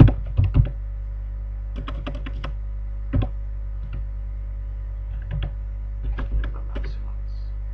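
Computer keyboard being typed on in short bursts of key clicks with pauses between, over a steady low electrical hum.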